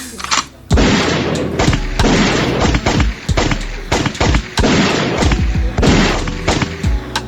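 Gunfire sound effect, a dense string of shots and booms starting about a second in, laid over background music.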